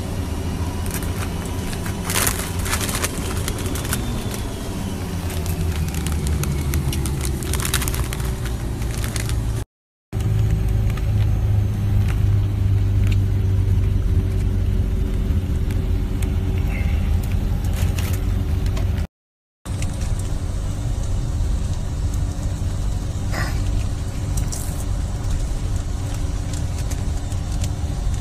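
Steady low rumble and hum of a private jet heard inside the cabin, with a few crackles and rustles in the first third. The sound cuts out briefly twice.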